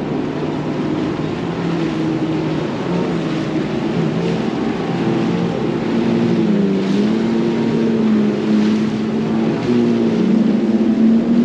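Bass boat's outboard motor running at speed, its pitch wavering a little, with a steady rush of wind and water past the hull.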